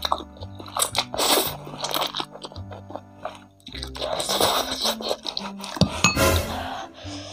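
Slurping and chewing of Samyang Buldak spicy instant noodles, in repeated short bursts, over background music with a steady low bass line.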